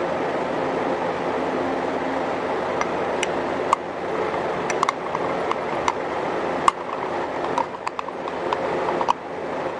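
Microwave oven running with a steady hum. From about three seconds in, a utensil clinks sharply against a glass measuring cup a dozen or so times, in uneven bunches.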